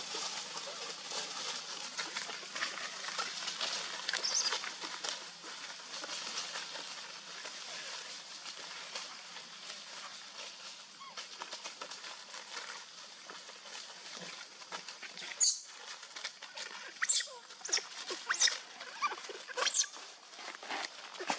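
Rustling and shuffling, then in the second half a run of short, high-pitched squeaks and squeals from a baby monkey.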